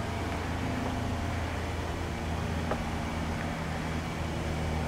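A steady low mechanical hum over a faint, even hiss, with no distinct events.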